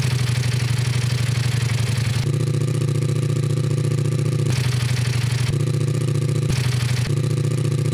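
Ducati Multistrada V4S's 1158 cc V4 engine running at a steady speed through its exhaust, a deep, even note that holds its pitch without revving, with slight shifts in tone a few times.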